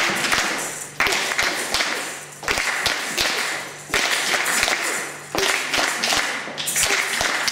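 Hand-clapping in rhythmic bursts, a new burst starting sharply about every second and a half and dying away.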